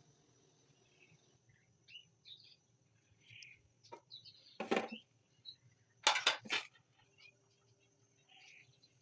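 A sharp knock, then three quick knocks about a second and a half later, over scattered faint chirps.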